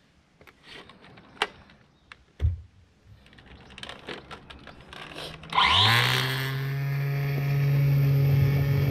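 Flymo Contour 20V Li cordless trimmer-edger being handled, with light plastic clicks and one low knock, then about five and a half seconds in its electric motor spins up with a rising whine and runs steadily at full speed.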